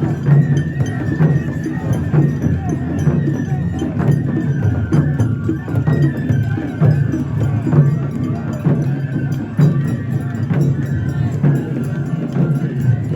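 Traditional Japanese festival music with a low drum beat about once a second and clacking, ringing percussion, over a crowd of voices at a mikoshi (portable shrine) parade.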